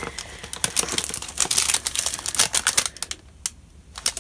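Clear plastic wrapping crinkling and clicking in the hands as a plastic-bagged paper parcel is picked up and handled, with a quieter pause of about a second near the end.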